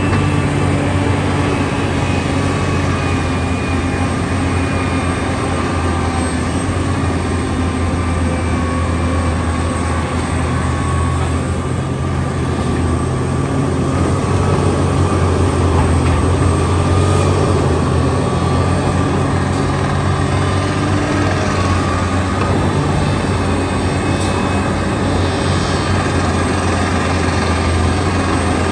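Heavy diesel engine of construction machinery running steadily with a low, even drone, swelling slightly in the middle.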